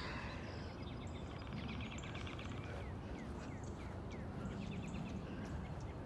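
Wind buffeting the microphone as a steady low rumble, with small songbirds chirping and trilling over it.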